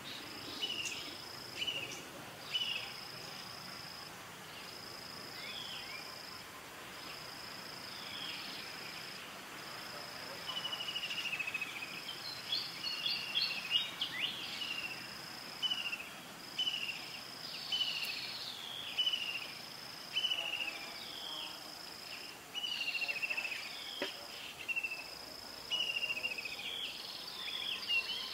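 Outdoor wildlife ambience of insects and birds calling: a steady high note repeats about every second and a half, with short falling chirps between that grow busier after about twelve seconds.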